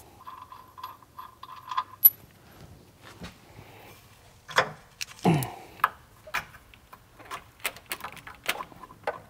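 Metal clinks, taps and knocks of a wrench and shock-absorber mounting hardware as the rear shock's top nut is worked loose, with a sharp click about two seconds in and two heavier knocks around the middle.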